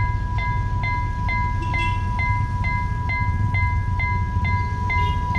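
Railway level-crossing warning alarm sounding: a steady electronic tone with a chime striking about twice a second, warning that a train is approaching. A steady low rumble runs underneath.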